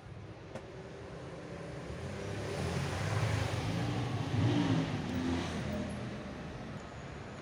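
A motor vehicle driving past close by, its engine and tyre noise building up over a few seconds, at its loudest around the middle, then fading away.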